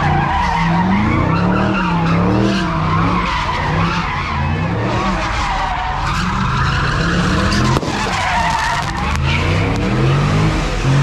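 Car doing a burnout, its tyres squealing continuously on the asphalt while the engine revs up and down over and over.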